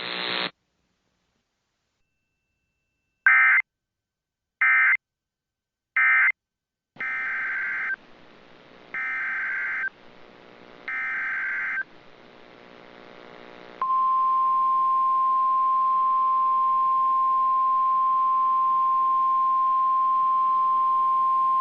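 Emergency Alert System signals on NOAA Weather Radio. First come three short SAME data bursts, the end-of-message code closing the previous warning. Then come three longer, screechy SAME header bursts with hiss between them, announcing a new warning. About 14 seconds in, the steady single-tone 1050 Hz weather radio warning alarm starts and holds.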